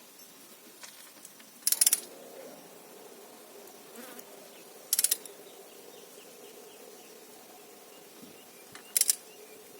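Click-type torque wrench's ratchet head clicking rapidly in three short bursts, about two, five and nine seconds in, as the wrench is swung back between pulls while a cylinder head bolt is torqued down. A faint steady hum runs underneath.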